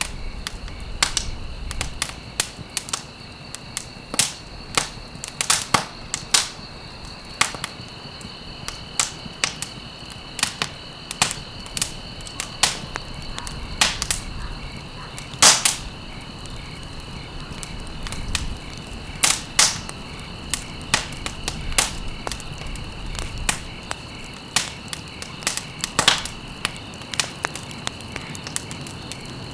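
Wood fire burning in a fireplace, crackling with irregular sharp pops over a low steady hiss, a few pops louder than the rest. A faint steady high-pitched tone runs underneath.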